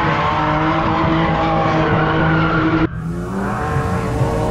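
Drift car engine held at high revs with tyres squealing, which cuts off abruptly about three seconds in as different audio takes over.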